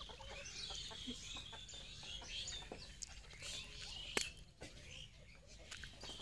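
Faint chicken clucking mixed with many short high bird chirps, with a sharp click about four seconds in.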